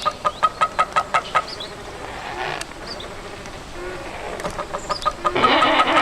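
Imagined Velociraptor vocalization built by sound design, with bird-like clucking. It opens with a fast run of clicking clucks, about six a second, followed by softer scattered chirps. About five seconds in, a louder, wavering pitched call begins.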